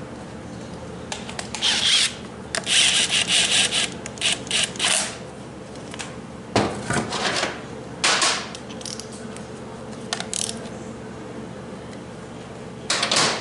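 Hands handling transmission parts on a workbench: a string of short scraping and rubbing sounds, with the busiest stretch in the first five seconds and more scrapes near the middle and just before the end.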